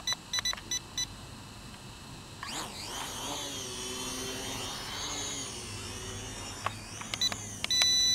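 A rapid string of short electronic beeps from the ATTOP X-Pack 18 drone's remote controller as its buttons are pressed, and a longer, louder beep near the end. In between, the drone's propellers whine, the pitch sweeping up about two and a half seconds in and then wavering as it flies.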